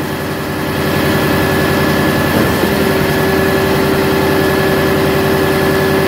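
A small 'frog' concrete pump and a concrete mixer truck running steadily while the truck discharges concrete into the pump's hopper: a low engine rumble with a steady hum over it. The level rises a little about a second in.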